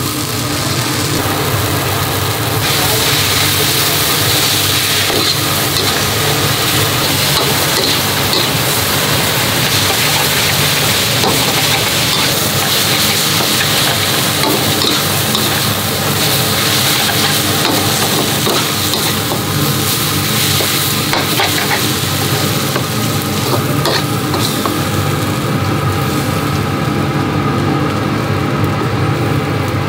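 Rice vermicelli and greens stir-frying in a wok over a gas burner: steady sizzling with the scrape and clatter of a metal spatula stirring the noodles.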